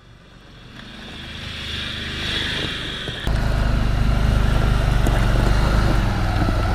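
Land Rover Defender's engine running off-road. It is faint at first and swells over the first three seconds, then becomes suddenly much louder with a steady deep rumble from about three seconds in.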